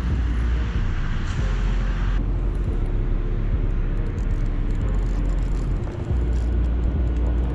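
Wind buffeting the camera microphone: a heavy low rumble with a hiss of noise over it, changing character abruptly about two seconds in.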